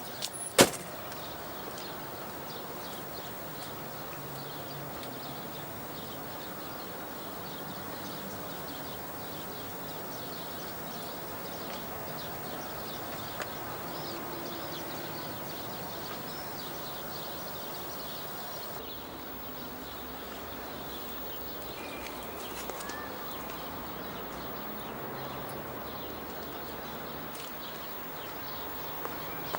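Steady outdoor background noise with a few faint bird chirps, and a single sharp click just after the start.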